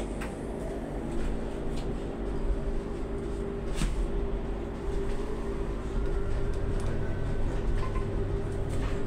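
Cabin of a Solaris Urbino 18 IV Electric bus under way: a steady electric drive hum of several tones over low road rumble, with a faint rising whine late on. A single sharp click about four seconds in.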